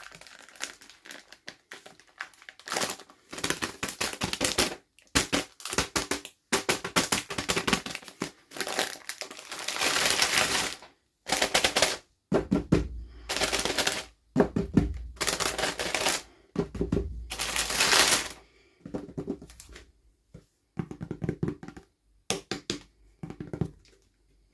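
Toy packaging being handled and opened: repeated bursts of plastic crinkling and crackling with quick clicks, broken by short silent gaps.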